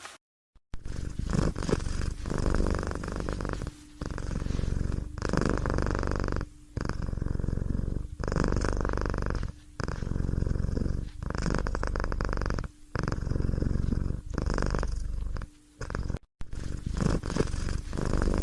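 A cat purring loudly and close up, in a steady rhythm of long breath cycles of about three seconds each, the buzz changing between in-breath and out-breath with brief dips between cycles.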